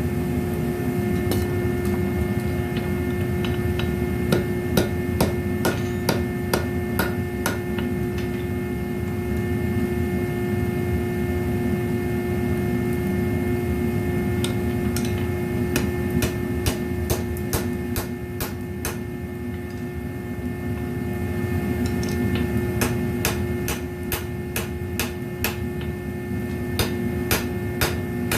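Hammer blows on an anvil, forging the heel of a horseshoe, coming in runs of quick strikes with pauses between. A steady low hum runs underneath.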